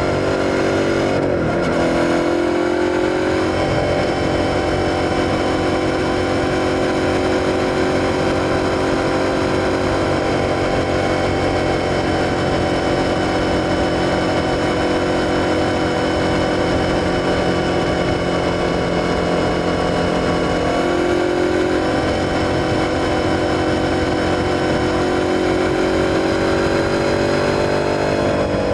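Suzuki SV650's 645 cc V-twin engine running steadily under way. The engine note shifts in pitch briefly about a second in, again around twenty seconds in, and once more near the end.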